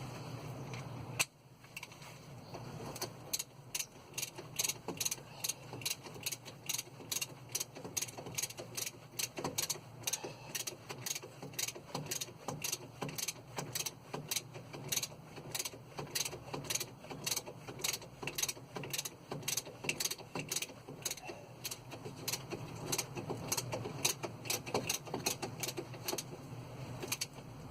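Ratchet wrench being cranked, clicking steadily at about four or five clicks a second.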